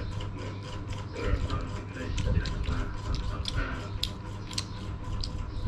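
A child eating rice from a spoon: a scattered run of small, sharp clicks and smacks of chewing and spoon on plate, over a steady low hum.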